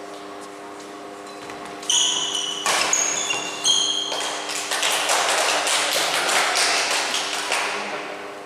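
Badminton shoes squeaking sharply on an indoor court floor, with racket hits, followed by several seconds of loud crowd noise that builds and fades towards the end. A steady low hum runs underneath.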